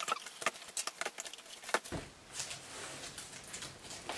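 IKEA SKUBB fabric shoe box with a clear plastic front being handled as a shoe is slipped inside: a quick run of light crackles and clicks over the first two seconds, then softer rustles of fabric and plastic.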